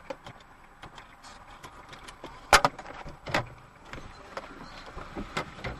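Quiet cabin of a stopped car with a faint low background and scattered, irregular small clicks and knocks, the sharpest two coming about two and a half and three and a half seconds in.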